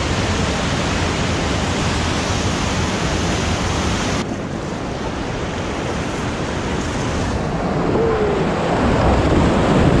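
Whitewater rapids rushing loudly, a dense, steady wash of turbulent water. It dips slightly about four seconds in, then grows louder toward the end as the raft drops into the rapid and water splashes over it.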